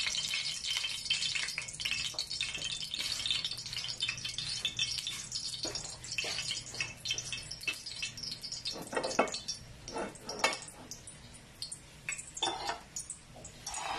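Cooking oil heating in an aluminium frying pan on a gas stove, crackling and sizzling with no food in it yet; the sizzle thins out over the second half. A few sharp clicks and knocks of kitchenware sound in the second half.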